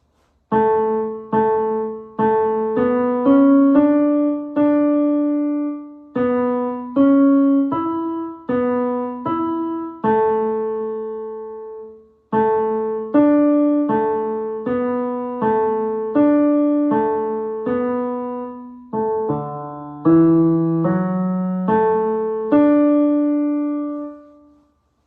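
Piano playing a single melody line, one note at a time: the tenor voice part picked out for singers to learn. Two phrases of struck, decaying notes, with a short break about halfway through and a few lower notes near the end.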